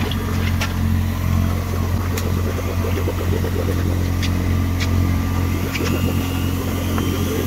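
Boat engine running steadily at idle, a constant low hum, with a few sharp clicks over it.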